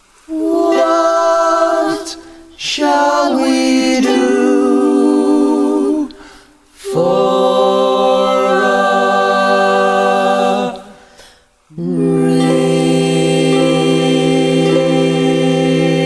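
A small group of voices singing long held notes in harmony, without accompaniment: four sustained chords with short breaths between them, the last still held at the end.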